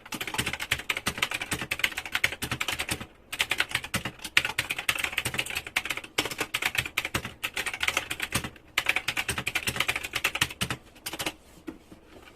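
Typing on a typewriter-style mechanical keyboard with round keycaps: a fast, dense stream of key clicks. It breaks off briefly about three seconds in and again near nine seconds, and ends with a few last keystrokes near the end.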